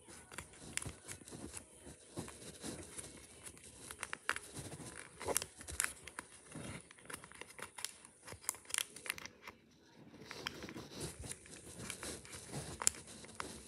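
Origami paper, with a plastic bag stuffed inside, crinkling and rustling under the fingers as the paper bunny is folded and squeezed. The sound comes as scattered short crackles, with a brief silence about two-thirds through.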